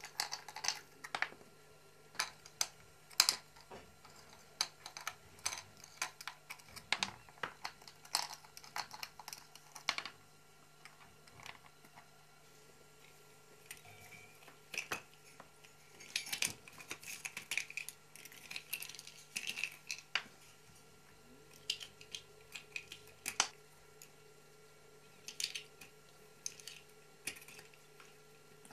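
Irregular clicking and clattering of a stack of plastic bottle caps on a wooden board, a homemade food puzzle toy, as a kitten paws at it to get at the kibble. The clicks come in busy runs with a couple of short lulls.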